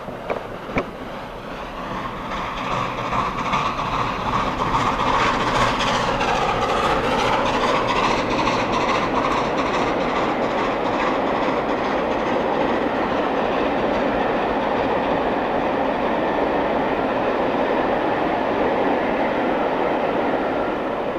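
LNER A4 Pacific 4464 Bittern, a steam locomotive, running through a station with its train, the sound dropping in pitch as the engine passes about six seconds in. Its coaches then roll past steadily on the rails.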